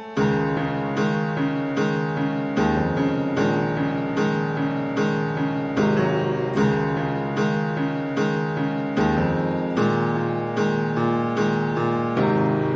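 Background music: a keyboard melody with notes struck at a steady, even pulse.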